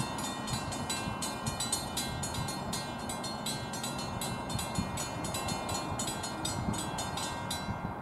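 Railroad grade-crossing warning bells ringing in rapid, overlapping strikes, then cutting off suddenly near the end as the crossing clears.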